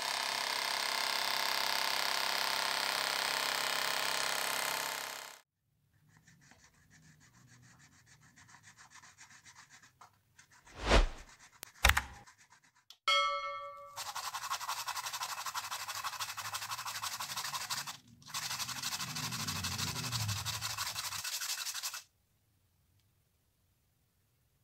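The DIY aerator's small 5-volt DC motor air pump running for about five seconds. Two sharp clicks and a short chime, a subscribe-button sound effect, follow about halfway through. Then an orange plastic bottle cap is rubbed on sandpaper in two long stretches of quick scratchy strokes.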